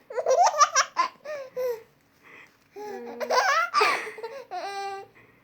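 Baby laughing in repeated short bursts of giggles and high squeals, with brief pauses between them.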